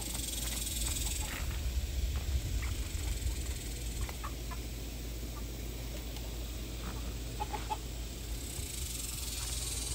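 Chickens clucking, short calls scattered at irregular moments over a steady low rumble; the rooster is not crowing.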